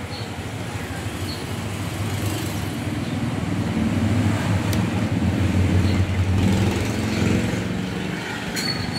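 A motor vehicle's engine running close by, growing louder over a few seconds and easing off near the end, like traffic passing on the street. A few faint clicks come through under it.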